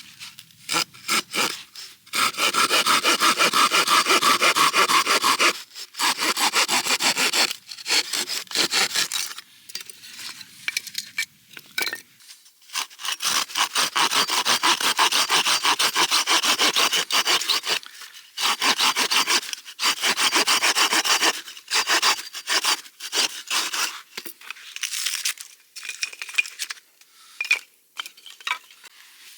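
Hand saw cutting firewood in runs of quick back-and-forth strokes, with short pauses between the runs.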